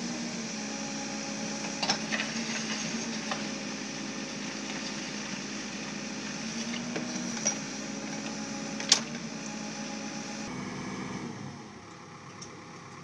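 Backhoe loader's diesel engine running steadily while the rear bucket digs a trench, with a few sharp metallic clanks from the bucket and boom, the loudest about nine seconds in. The engine sound drops to a quieter level about ten and a half seconds in.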